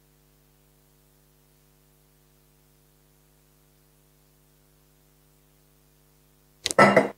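Near silence with a faint steady electrical hum. A short loud sound comes in near the end.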